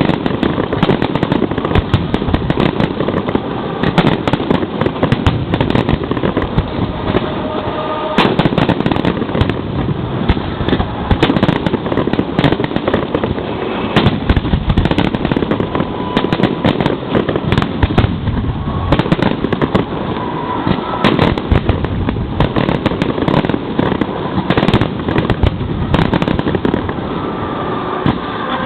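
Aerial fireworks shells launching and bursting directly overhead, heard from the launch site: a dense barrage of loud bangs, several a second, overlapping without a pause.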